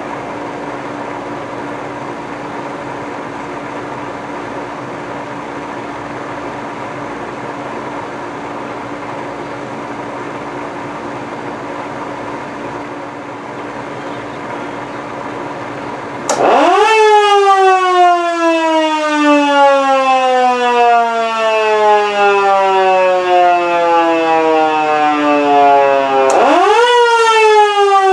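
1955 Model 2 mechanical siren growling: a steady rushing noise with a faint hum for the first two-thirds, then the rotor is briefly spun up, its tone jumping sharply upward and then sliding slowly down over about ten seconds as it coasts. A second quick spin-up comes near the end.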